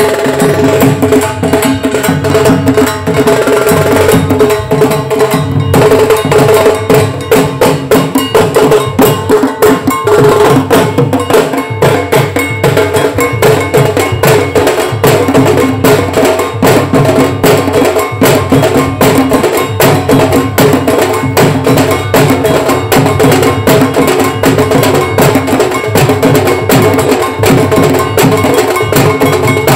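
Bengali wedding band playing loud, with fast, dense drumming and percussion under a sustained melody line, recorded close on a phone microphone.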